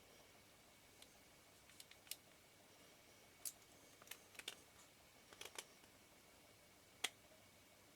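Scattered light clicks and taps of small lens parts and tools being handled while a Nikkor lens's helicoid and aperture hook are refitted, a few bunched near the middle and the sharpest single click about seven seconds in.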